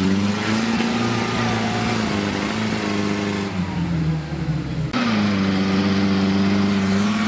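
A UAZ-469 off-road vehicle's engine revving hard as it climbs a loose dirt slope. The pitch sags about three seconds in, then after an abrupt change about five seconds in it holds steady at high revs.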